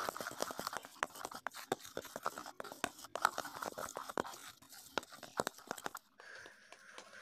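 Tint brush stirring and scraping a hair-colour mixture in a clear plastic tub: quick, irregular clicks and scrapes that stop about six seconds in.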